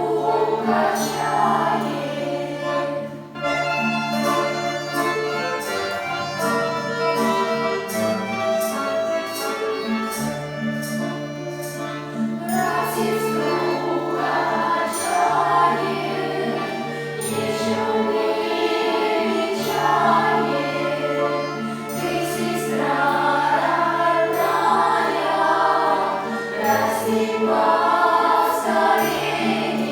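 A Russian folk instrument ensemble playing a Russian folk song, with held low bass notes under a moving melody and chords.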